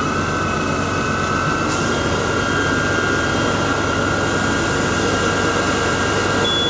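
Fire engine pump running steadily with a high, constant whine, supplying the hose line.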